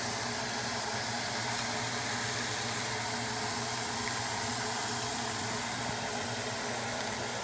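New York strip steaks sizzling on a hot ridged grill pan, a steady, even hiss.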